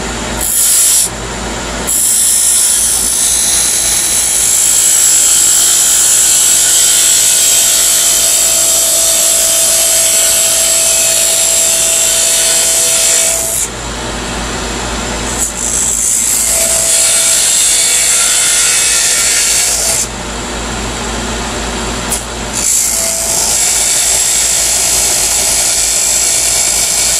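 Small parting tool cutting into spinning wood on a wood lathe: a loud, high scraping hiss in three long cuts, broken twice by short pauses where the tool eases off, over the steady hum of the lathe. The groove is being cut down nearly to parting the piece off.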